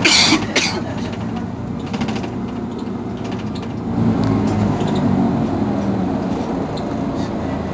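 Mercedes-Benz Citaro G articulated bus's diesel engine idling steadily at a stop. A short sharp hiss comes at the start, with a second one just after, and the engine note swells a little about four seconds in.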